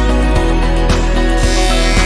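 Background music: a soft, steady instrumental track with a regular beat.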